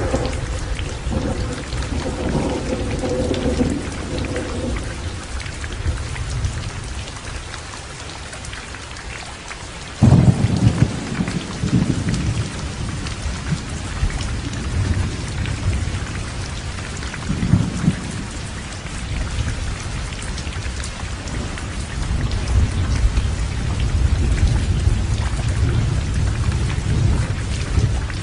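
Heavy rain falling steadily with thunder rumbling underneath. A sharp thunderclap breaks in about ten seconds in and rolls on. Another rumble comes a few seconds later, and more rolling thunder builds near the end.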